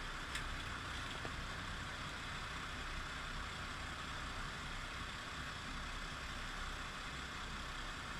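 Sport-fishing boat's engines running steadily under way, with the rushing wash of the wake behind the stern; a faint click about half a second in.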